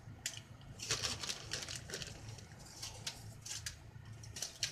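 Plastic zip-top bag crinkling and rustling in short, irregular bursts as handfuls of shredded cheese are taken out and sprinkled.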